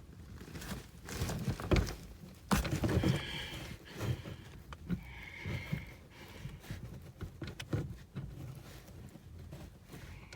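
Irregular clicks, knocks and rustling of a hand fumbling inside a liftgate's plastic trim panel, groping for the latch to release a liftgate that will not unlock with its switch.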